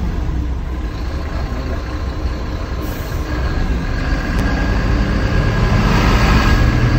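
BharatBenz 2523 tipper lorry's diesel engine running with road noise, heard inside the cab while the lorry moves at about 10–20 km/h. A steady low rumble that gets a little louder near the end.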